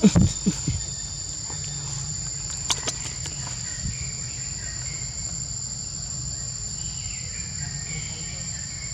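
Steady high-pitched drone of insects in chorus, with a few short sharp sounds near the start and again about three seconds in.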